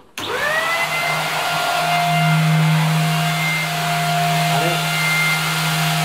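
Greenote GSC30 600 W corded stick vacuum cleaner switched on: its motor spins up with a rising whine in the first second, then runs steadily with an even hum and whine. The sound is fairly muffled.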